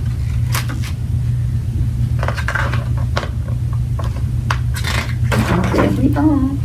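A hardcover picture book being handled and its pages turned: scattered short clicks and paper rustles over a steady low hum.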